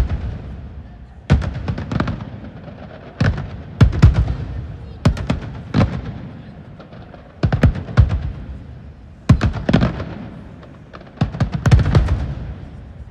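Aerial fireworks bursting overhead: a run of sharp booms, some in quick doubles and triples, every second or two, each trailing off in a rolling echo.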